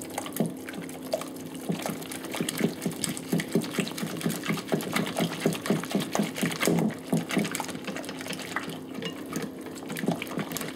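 Wire balloon whisk quickly beating eggs into a runny cream cheese and crème fraîche batter in a glass bowl: a fast, rhythmic run of wet slapping strokes, several a second.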